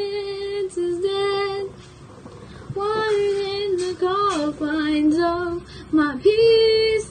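A girl singing solo, holding long notes with small bends in pitch, with a short break about two seconds in.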